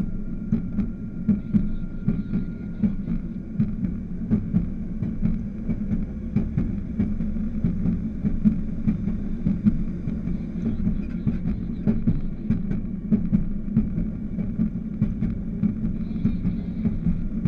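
Railroad motorcar (speeder) running along the track: a steady engine drone with irregular clicking and clatter from the wheels on the rails.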